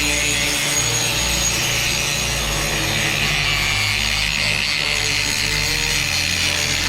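Power grinder grinding down steel welds, a steady, continuous grinding noise.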